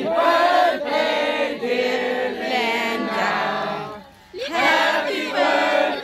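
A group of voices singing a birthday song together, with a short break about four seconds in.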